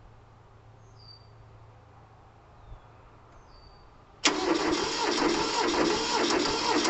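Mitsubishi MT372 tractor's two-cylinder diesel engine starting cold on glow plugs: after a quiet stretch with a few faint bird chirps, it fires suddenly about four seconds in and keeps running steadily.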